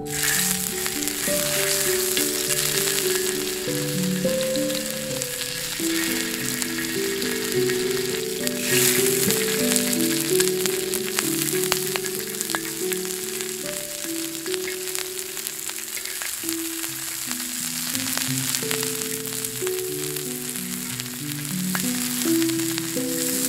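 Beef and green vegetables sizzling in oil on a round Korean-style griddle pan, a dense steady sizzle with occasional crackles. Soft background music plays along with it.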